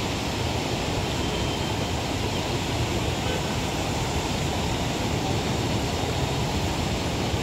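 Rain-swollen muddy floodwater rushing along a drainage channel through broken culvert pipes: a steady, unbroken rush of water.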